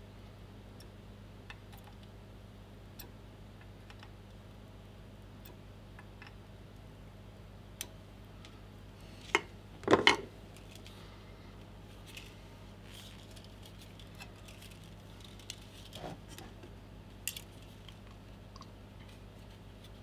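Light clicks and taps of soldering tools and parts being handled at the bench, with a louder clatter of hard objects about nine to ten seconds in, over a steady low hum.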